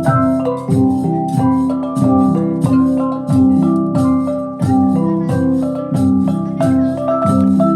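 Vietnamese cồng chiêng gong ensemble playing a steady xoang dance rhythm: many overlapping ringing gong tones, with a deep stroke falling slightly in pitch repeating a little faster than once a second.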